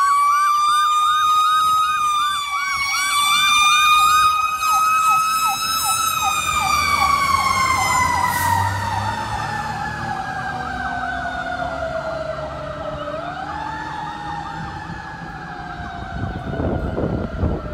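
Fire engine sirens on an emergency run. A wailing siren slowly rises and falls and winds back up about thirteen seconds in, with a fast electronic yelp repeating over it. The sound fades as the truck drives away, over a faint engine rumble.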